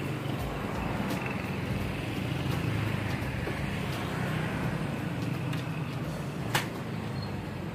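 Street traffic: a motor vehicle engine running steadily with a low hum, with one sharp click about six and a half seconds in.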